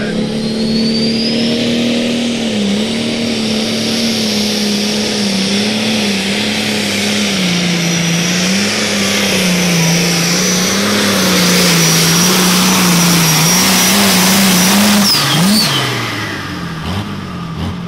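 Super stock pulling tractor, a modified International 1086, with its diesel engine at full throttle under load. It runs at a high, loud note that wavers up and down, with a high steady whistle over it. About fifteen seconds in, the throttle comes off and the engine note falls away.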